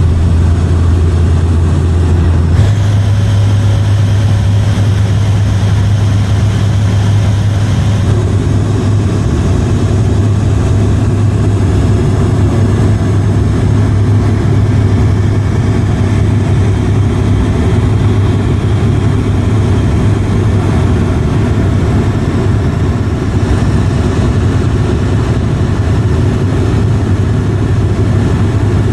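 Airliner engines droning steadily, heard inside the cabin, with a strong low hum that steps up slightly in pitch about two and a half seconds in.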